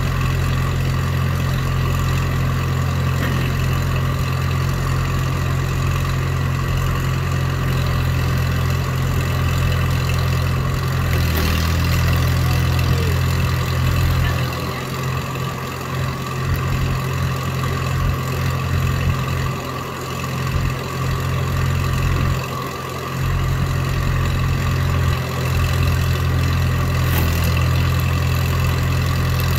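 Engine of a tracked log splitter running steadily at a constant speed. Its low note thins out briefly a few times in the second half, and there is a short sharp knock about eleven seconds in.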